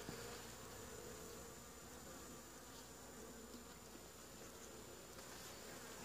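Honeybees buzzing from an opened hive, a faint steady hum.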